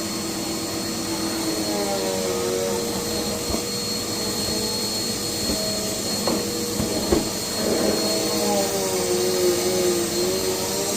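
Vacuum cleaner running steadily across a bare concrete floor, a whine with a wavering tone that rises and falls at times. A couple of sharp knocks come about six and seven seconds in.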